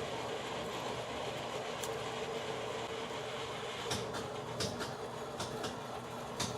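Metal lathe running steadily with an even hum, with a few sharp ticks in the second half.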